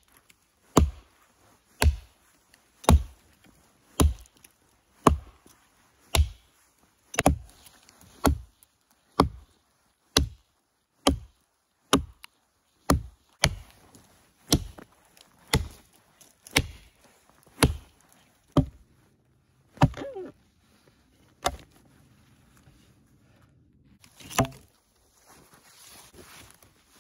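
Axe chopping into a tree, steady blows about one a second, then a few slower, more spaced strokes near the end.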